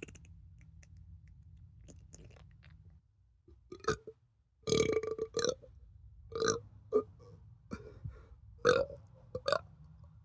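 A man burping loudly again and again. After a few quiet seconds comes a short burp, then a long one, then five shorter burps about a second apart.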